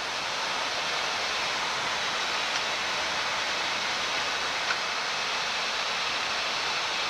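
Steady rushing noise of air over the flight deck of a Boeing 787-9 on approach, with two faint ticks partway through.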